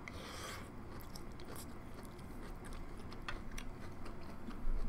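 A person chewing a mouthful of corn cheese (sweet corn baked with melted mozzarella and cheddar), with a few short soft mouth clicks.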